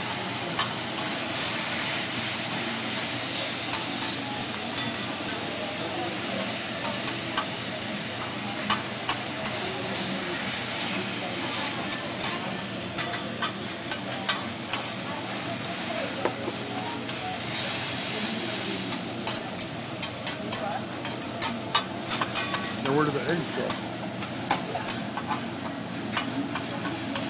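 Noodles sizzling on a hot hibachi griddle, with a spatula scraping and tapping against the steel as the chef tosses them. The clicks and taps come more often in the second half.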